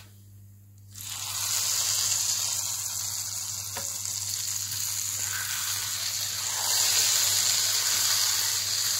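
Hot tadka (oil fried with red chilli powder) sizzling as it is poured from a pan onto the nehari. The steady sizzle starts about a second in and grows a little louder near the end.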